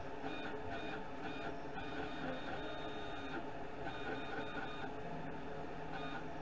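Stepper motors of a desktop CNC machine whining as the axes are jogged by hand from the controller, in several short spurts with one longer run about two seconds in: moving the bit into place to set the work origin.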